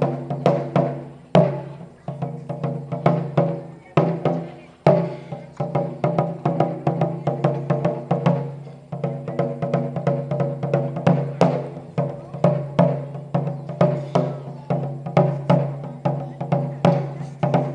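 Japanese taiko drums struck with wooden sticks in a fast, driving rhythm of two to four strokes a second, each stroke ringing on with a deep drum tone. A few heavier accented hits stand out in the first five seconds.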